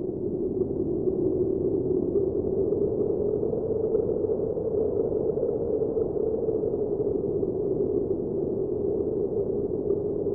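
Title-sequence sound effect: a steady, low rushing drone that holds level without pauses or clear beats.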